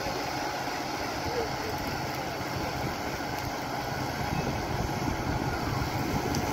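Crane truck's engine running steadily with a low hum, driving its hydraulic loader crane while the grab holds a small boat aloft.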